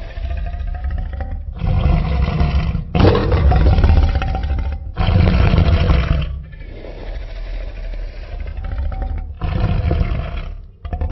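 Tyrannosaurus rex roar sound effect: a run of deep roars and growls, each a second or two long, with short breaks between them and the loudest near the middle.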